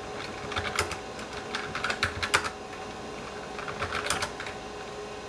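Keys being typed in short irregular runs on the IBM PS/2 Model 25's keyboard, as DOS commands are entered, over a steady faint hum.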